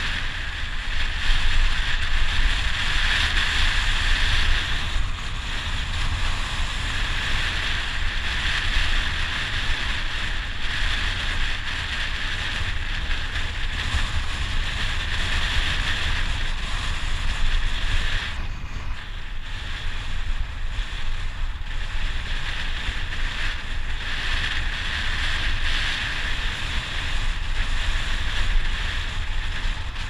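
Wind buffeting the microphone of a bicycle speeding downhill, with a steady rush of air and tyre noise. It eases for a few seconds about two-thirds of the way through.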